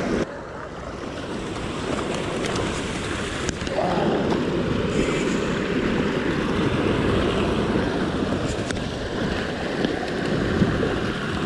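Ocean swell washing and breaking against a rock ledge, with wind buffeting the microphone; the wash grows a little louder about four seconds in.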